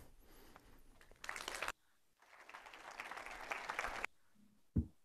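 Audience applauding, which cuts off suddenly about four seconds in, followed near the end by a single short thump.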